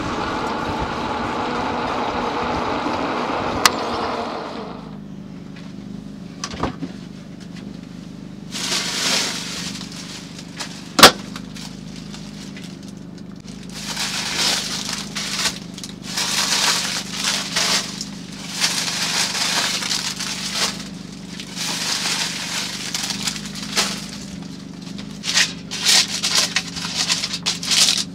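An e-bike's motor whining over tyre noise on gravel for about four seconds, then aluminium foil crinkling and rustling in repeated bursts as it is handled. There is one sharp click about eleven seconds in, and a low steady hum underneath.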